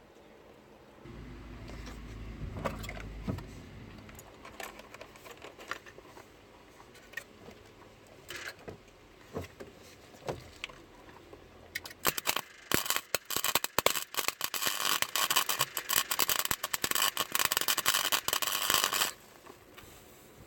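Welding arc crackling and spitting, sputtering in short bursts about twelve seconds in, then crackling steadily for about seven seconds before cutting off. Before it, a few scattered clicks and knocks of metal being handled.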